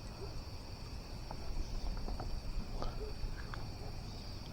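Insects trilling steadily in a continuous high-pitched chorus, over a low rumble and a few faint small ticks.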